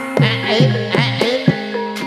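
Javanese Banyumasan gending played on gamelan, with kendang drum strokes that bend in pitch over sustained metallophone tones, in a bass-heavy mix.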